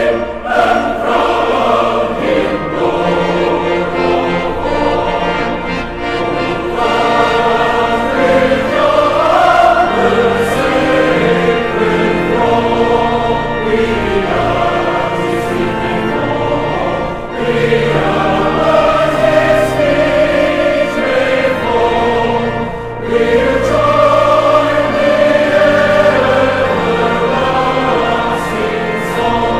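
A choir singing a hymn, several voices together.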